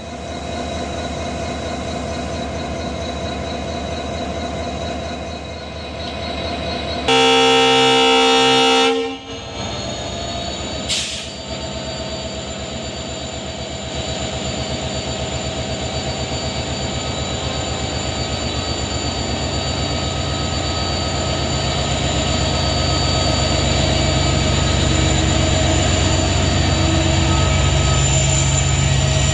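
EMD WDP-4D diesel-electric locomotive, with a two-stroke 710 engine, humming at idle. About seven seconds in it sounds one horn blast of about two seconds. It then throttles up, and the engine hum grows steadily louder as the train accelerates away.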